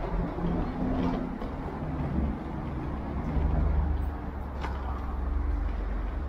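Street traffic: a motor vehicle's engine running slowly close by, a steady low rumble that swells about three and a half seconds in. A short click sounds a little past four and a half seconds in.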